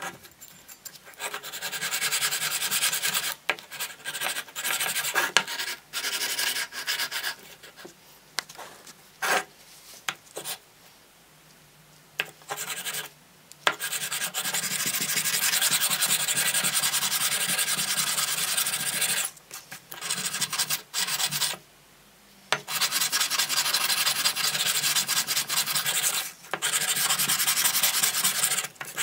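Hardened steel knife blade being hand-sanded wet against abrasive paper on a block, in long runs of rapid back-and-forth strokes broken by short pauses.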